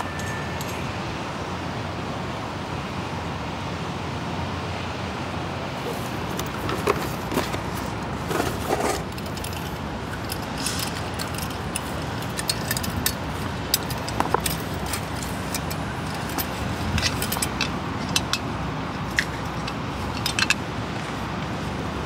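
Scattered light metallic clinks and clatters of small gear being handled, over a steady rushing background noise.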